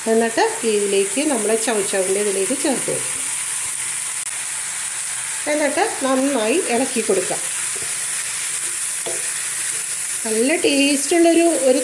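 Wooden spatula stirring diced chayote and grated coconut in a hot nonstick kadai over a steady sizzle. The stirring comes in three spells of wavering, squeaky scraping: near the start, around the middle, and again near the end.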